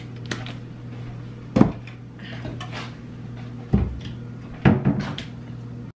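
A few sharp knocks and clunks of kitchen containers being handled on the counter: one about a second and a half in, then a cluster between four and five seconds in, over a steady low hum.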